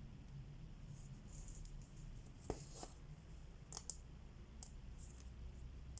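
Cross-stitching by hand: a needle poking through the fabric and thread drawn through it, heard as soft swishes and a handful of faint clicks over a low steady hum.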